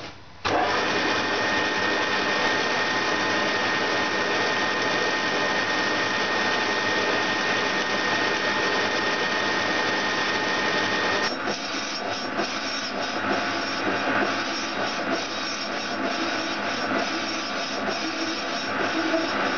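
A metal lathe turning a rough cast-iron flywheel. The sound comes in abruptly just after the start as a steady machine whine, and about eleven seconds in it turns rougher and uneven.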